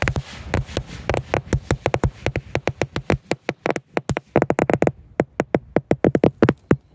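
A buried strip of Black Cat firecrackers going off in a rapid, uneven string of bangs, several a second, stopping near the end.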